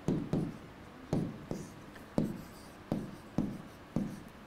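Stylus writing on a tablet: a series of short, sharp taps and scratches, about two a second and unevenly spaced, as words are handwritten.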